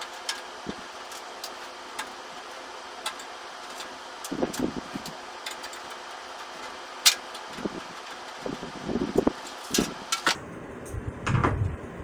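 Screwdriver backing out the retaining screws of a PC case's top exhaust fan: scattered small sharp clicks and ticks, with bouts of rattling as the fan and case panel are handled, over a steady hiss. A sharp click about seven seconds in is the loudest.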